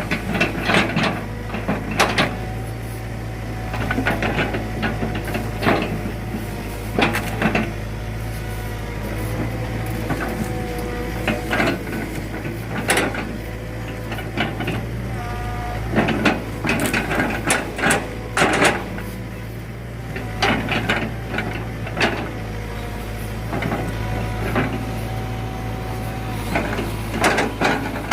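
Hydraulic excavator running steadily, its engine drone under a steady hydraulic whine, with repeated sharp knocks and clatters of rubberwood logs being grabbed and lifted.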